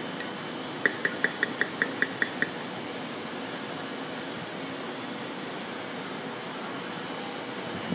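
A quick run of about nine light, clinking taps, around five a second, starting about a second in, over a steady mechanical room hum.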